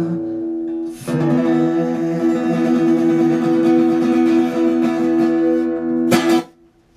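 Guitar playing the closing chords of a song: after a brief gap about a second in, a strummed chord rings out, then a final sharp stroke a little after six seconds and the sound stops.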